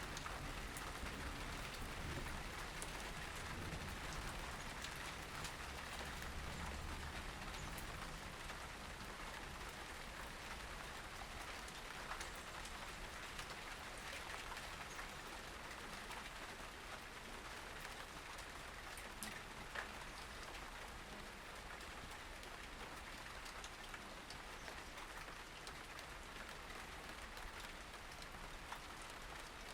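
Faint, steady patter and hiss like rain falling on surfaces, sprinkled with small ticks. A low rumble underneath in the first several seconds fades away.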